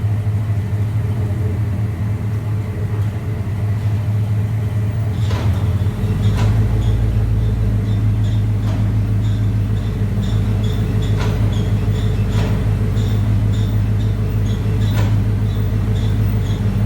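Chevrolet Silverado SS pickup's 6.0-litre V8 running with a steady hum, a deeper rumble joining about six seconds in. From about five seconds on, sharp knocks come every one to two seconds, with faint ticks between them: the clunk that the owner suspects is in the AWD transfer case or driveshaft.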